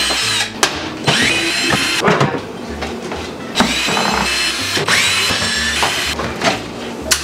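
Cordless drill backing the hinge screws out of wooden kitchen cabinet doors. It runs in several short bursts, each spinning up into a rising whine, with sharp clicks between them.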